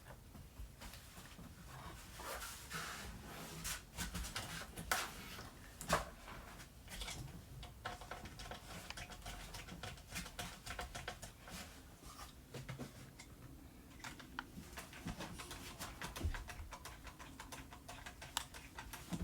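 Scattered small clicks, taps and light scrapes of hands fitting an M.2 SSD into a motherboard slot and refitting its metal heatsink, with one sharper click about six seconds in.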